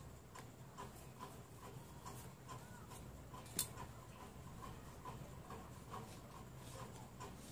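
Faint, light scratching of a marker traced along a metal ruler and around a paper pattern on fabric, over a regular ticking of about two to three ticks a second. One sharp tap about three and a half seconds in.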